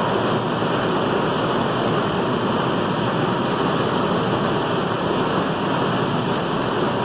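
Loud, steady rushing noise with no breaks, like air or machinery running.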